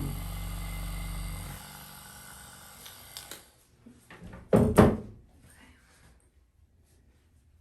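A small electric motor hums steadily and cuts off about one and a half seconds in. A couple of seconds later come two sharp thumps close together, the loudest sounds here.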